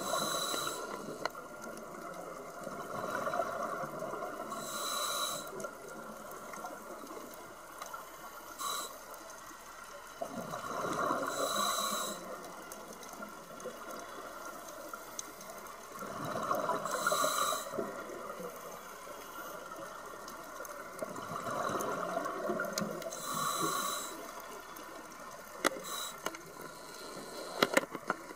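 Scuba diver breathing through a regulator underwater: a hiss on each inhale and a rush of bubbles on each exhale, in slow breaths about every five to six seconds.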